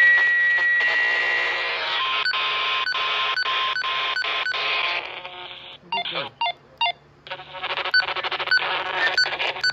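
Weather alert radio giving out a harsh, buzzing electronic data tone over hiss, broken by regular short dropouts. It falls away for about two seconds in the middle, then comes back.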